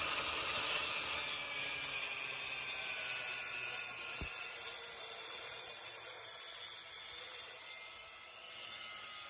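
Angle grinder cutting a V-notch into steel: a steady high whine over a grinding hiss, its pitch sagging slightly as the disc is loaded.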